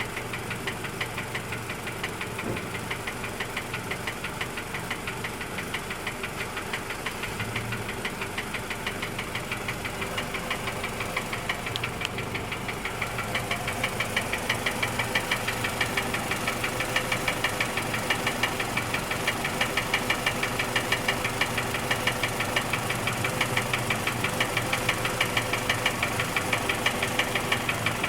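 2007 Scion tC's 2.4-litre four-cylinder engine, a used JDM replacement, running at a steady speed with a regular knock that grows louder over the second half. The owner takes it for engine knock.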